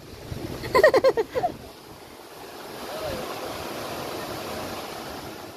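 Rushing water of a shallow rocky stream running over small rapids, a steady even rush that swells a little after the first couple of seconds. A person's voice is heard briefly about a second in.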